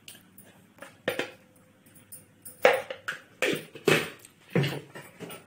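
An animal whimpering in about six short cries, most of them in the second half.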